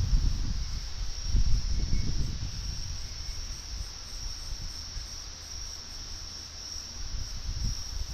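Crickets chirping in a steady high chorus, under a low rumble that rises and falls, loudest at the start and again about a second and a half in.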